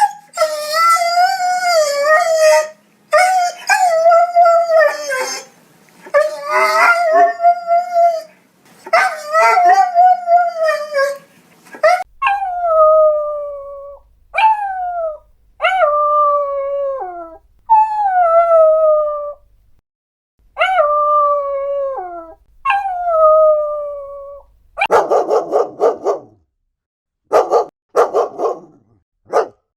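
Dog howling: several long howls with a wavering pitch, then a run of shorter howls, each starting high, dropping quickly and holding for about a second and a half. About 25 seconds in, a burst of rapid barking takes over.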